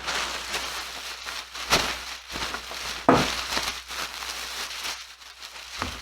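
A bag of used clothing rustling and crinkling as it is opened and handled, with louder rustles about two and three seconds in.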